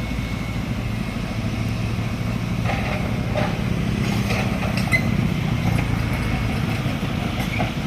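Heavy diesel dump truck engine running steadily at a low, even pitch, with a few faint knocks and clanks.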